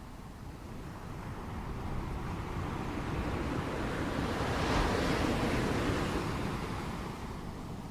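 Sea surf: a wave builds, breaks about five seconds in and slowly fades.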